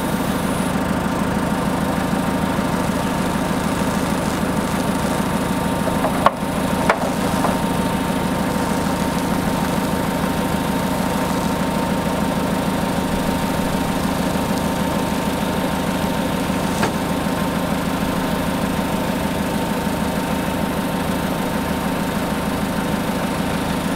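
Forklift engine running steadily at idle, a constant hum, with two sharp knocks about six and seven seconds in.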